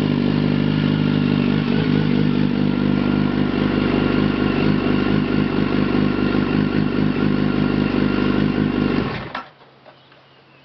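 Yamaha FZ1's inline-four engine idling steadily through a Mivv aftermarket exhaust, then switched off about nine seconds in, the sound dying away quickly.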